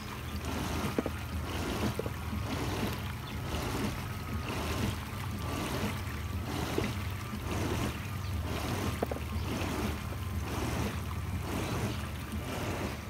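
Spa filtration pump and jets running, water churning and bubbling over a steady low motor hum. The water noise swells and fades about once a second as the pump surges between high and low speed, a fault that checks for air and clogs in the lines have not cured.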